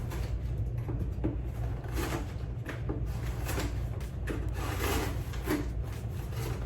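A small cardboard box being opened and its contents handled: scattered scraping, rubbing and light knocks of cardboard and packing.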